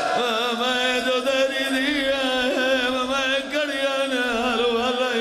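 A man's voice chanting one long, held line of a majlis lament, its pitch wavering and curling in sung ornaments over a steady note.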